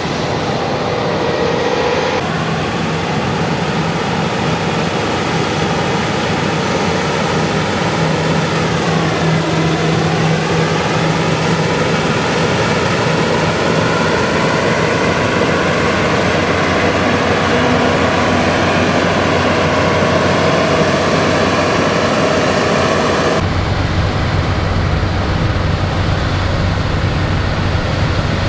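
Claas Lexion 8900 combine harvester running steadily while harvesting wheat: engine and threshing machinery. About a third of the way in its pitch dips briefly and recovers, and near the end the sound turns abruptly deeper.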